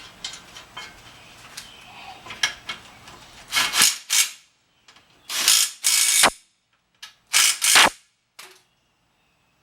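Light ratchet-like clicking, then four short bursts of a power tool running hard as it drives in the brake caliper bolts.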